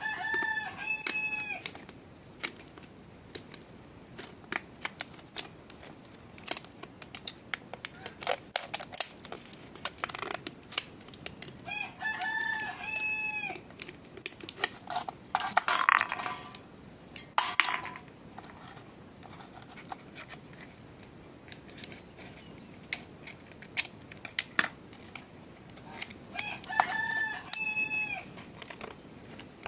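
A rooster crowing three times, about thirteen seconds apart, with scattered clicks and clatter in between.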